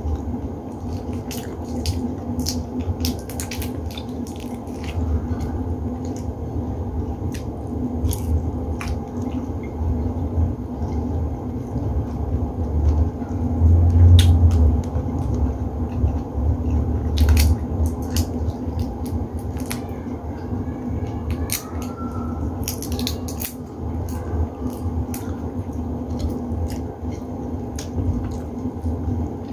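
Close-up eating sounds: cooked shrimp being peeled by hand and chewed, with many short clicks, cracks and wet mouth smacks. A steady low hum runs underneath.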